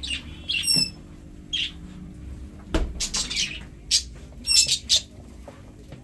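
Several budgerigars chirping and chattering in short, sharp calls, some with quick falling whistles. A single sharp knock comes a little under three seconds in.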